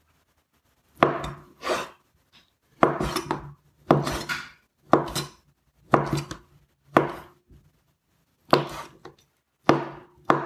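Kitchen knife dicing smoked tofu on a bamboo cutting board: a series of sharp knocks as the blade strikes through to the board, roughly one or two a second, with a short pause about three-quarters of the way through.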